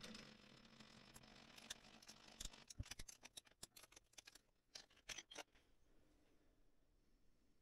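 Faint, sharp metal clicks and clinks, clustered between about two and five and a half seconds in, as the steel cross pin is taken from the lathe's four-jaw chuck and handled. The lathe's hum fades out at the very start.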